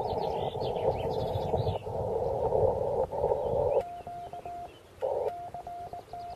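Amateur radio transceiver: hiss heard through a narrow receive filter, then, about four seconds in, a steady Morse code tone keyed in dots and dashes, broken once by a short return of the hiss. Birds chirp faintly in the first couple of seconds.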